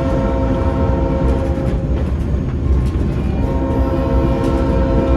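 Locomotive horn sounding two long blasts over the low rumble of the moving train: the opening of the grade-crossing signal of two long, one short and one long. The first blast ends about two seconds in and the second starts about a second later.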